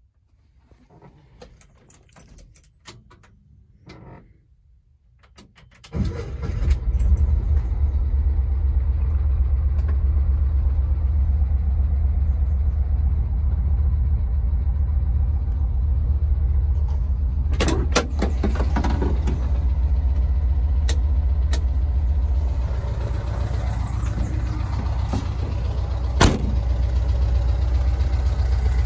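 Volkswagen Kombi van's freshly rebuilt engine starting about six seconds in and then idling steadily, after a few seconds of faint clicks and handling noise. A couple of sharp clicks stand out over the idle later on.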